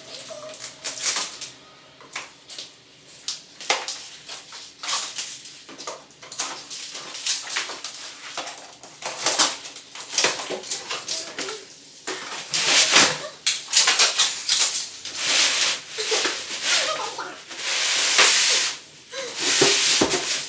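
Unboxing a newly delivered fridge: cardboard and packaging handled and torn open, with irregular rustling, scraping and knocks, and a longer tearing, rustling stretch near the end.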